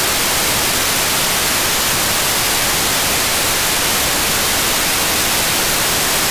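Steady, loud FM radio hiss from a software-defined radio receiver tuned to the ISS 2-metre amateur downlink, with no voice on the channel between transmissions of the ARISS contact.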